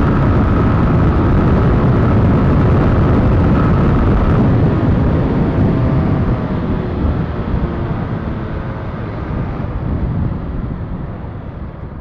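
Wind rushing over the microphone, with the running noise of a Mondial 125 KT motorcycle under way. The noise eases off gradually through the second half as the bike slows.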